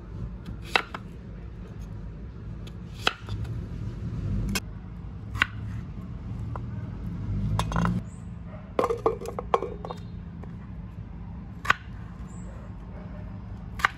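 A steel kitchen knife chopping a peeled gourd on a wooden chopping board: separate sharp knocks of the blade on the board, a second or two apart, with a quick run of three about nine seconds in. A low steady hum runs underneath.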